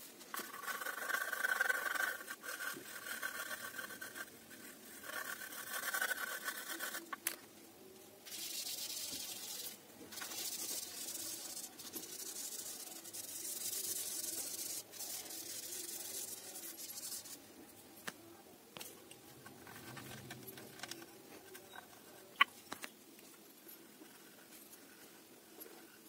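Pencil rubbing and scratching on paper: uneven strokes at first, then about nine seconds of steady, hissing shading as the lead is worked back and forth across the page, then fainter short strokes with one sharp tick about 22 seconds in.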